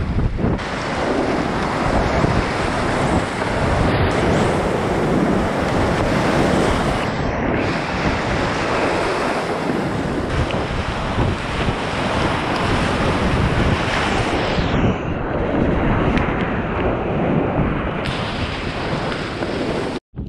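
Whitewater rapids rushing and splashing around a kayak, with spray striking the camera close by; loud and continuous. It cuts out abruptly near the end and gives way to quieter water.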